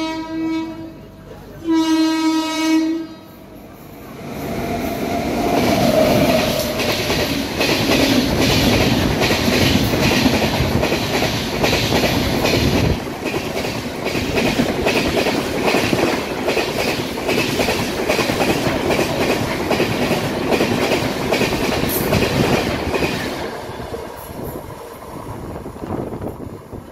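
WAP-7 electric locomotive sounding its horn, a blast ending about a second in and a second short blast, then an express train of LHB coaches passing through at speed with a loud rush and wheels clattering over rail joints, fading away near the end.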